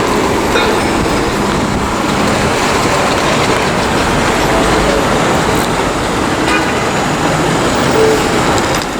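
New York City subway train running, a steady loud noise of the moving train.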